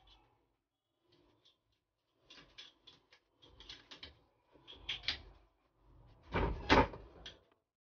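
Metal-on-metal scraping and clicking as a screwdriver is worked against the shaft and top housing of a submersible motor during assembly: several short scrapes, the loudest a little over six seconds in.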